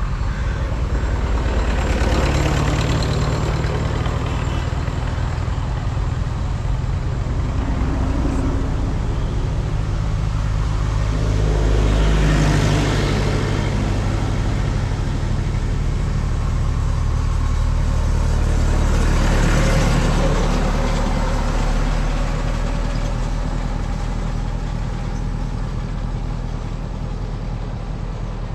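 Several tractor engines running as the tractors drive past one after another, each swelling louder as it goes by close: about two seconds in, about twelve seconds in and about twenty seconds in.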